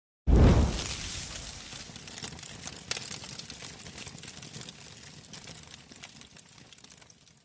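Logo sting sound effect: a sudden deep boom about a third of a second in, then a crackling, hissing tail that fades away over about seven seconds.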